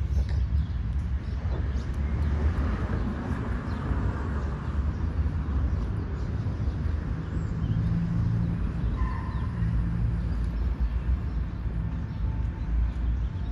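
City park ambience: a steady low rumble of traffic from the surrounding streets, with a few brief bird chirps over it.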